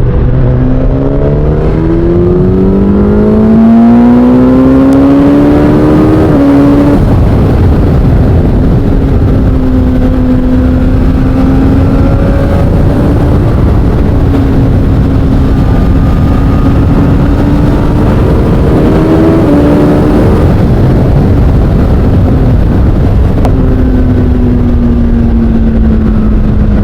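2023 Suzuki GSX-S1000 inline-four through an SC-Project aftermarket exhaust, under way. The engine note climbs steadily for about six seconds and drops at an upshift. It then holds steady while cruising, rises briefly again about twenty seconds in, and eases off near the end. Wind rushes on the microphone underneath.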